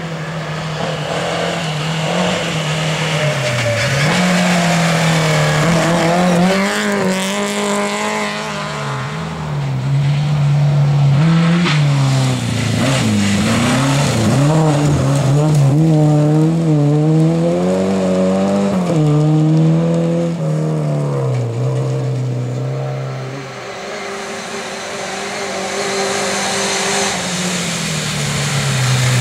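Lada rally cars, a Lada 2107 and a Lada Niva, driven hard on a gravel stage. Their four-cylinder engines rev up and fall back again and again through gear changes and braking, with a brief drop about 23 seconds in before the next car comes up loud.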